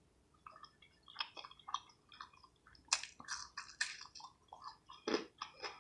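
Close-miked chewing while eating fried food: irregular wet mouth clicks and lip smacks, with a few sharper, louder bites about three and four seconds in.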